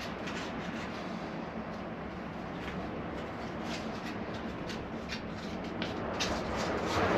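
Fine sandpaper rubbing around a corroded brake caliper piston to clean off rust: a soft, steady scratchy rubbing with light scattered scrapes. A louder rushing noise swells near the end.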